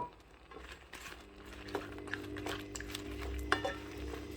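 Spoon stirring and clicking against a cooking pot as fried eggplant pieces are mixed into a coconut-milk curry gravy. A steady hum sets in about a second in.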